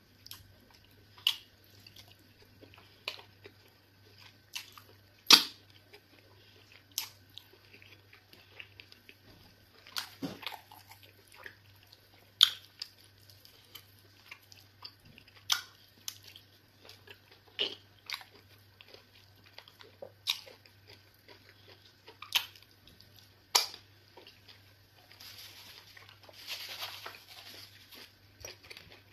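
Close-up wet mouth sounds of eating eba with egusi soup by hand: sharp lip smacks and chewing every second or two, with a longer, softer wet noise near the end.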